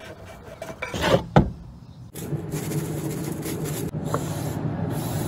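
Hand tools scraping and rubbing on wood. A few sharp scrapes come first, the loudest two close together about a second in, then from about two seconds a steady rubbing sound.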